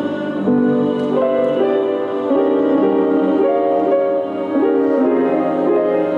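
Instrumental keyboard music: a slow melody played in held notes, stepping from one note to the next about twice a second.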